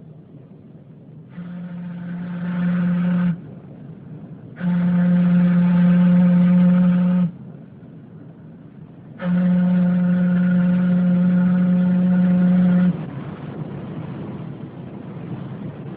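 A steamship's whistle blowing three long, steady blasts, each longer than the one before, over a steady rush of sea and engine noise.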